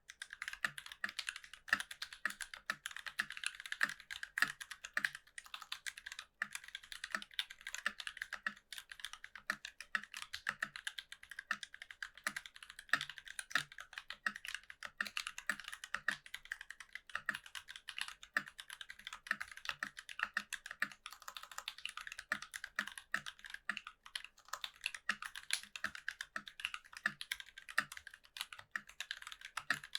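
Continuous fast typing on a NovelKeys NK65 mechanical keyboard with an aluminium plate and lubed, filmed C3 Kiwi tactile switches under GMK keycaps: a dense, irregular stream of keystroke clacks with an occasional deeper thock.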